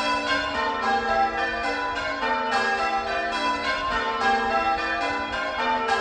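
Change ringing on a ring of six church bells (five Pennington bells of 1789 and a 1921 John Taylor treble; the tenor is about 8 cwt, in G), the bells struck one after another in a steady stream with their tones ringing on and overlapping.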